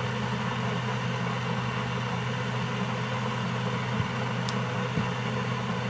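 Electric kettle heating water: a steady rushing hiss over a low hum, with a few faint clicks near the end.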